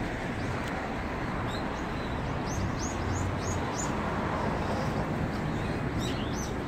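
Steady city street noise with short, high bird-like chirps: a quick run of them about two and a half seconds in, and more near the end.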